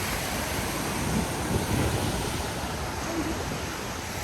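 Ocean surf washing onto the beach, a steady wash of noise with wind across the microphone.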